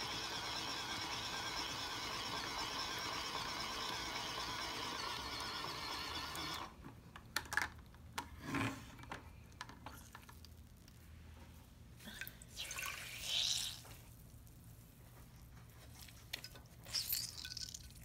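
Tiny two-AA battery-powered beauty sponge washing machine running with a steady whine of its small motor and churning water, cut off suddenly after about six and a half seconds. Then scattered wet splashes and drips as the sponge is taken out and squeezed over a bowl of soapy water.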